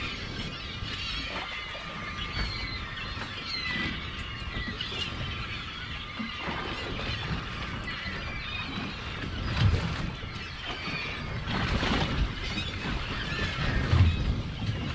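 Many gulls in a feeding flock calling over the water, with many short high squealing calls overlapping, over wind and water noise against the boat. A few low thumps come about two-thirds of the way in and near the end.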